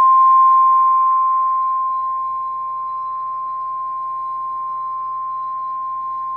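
NOAA Weather Radio's 1050 Hz Warning Alarm Tone: one steady, unwavering electronic tone, easing a little in loudness over the first couple of seconds and then holding level. It signals that a warning broadcast follows, here a severe thunderstorm warning.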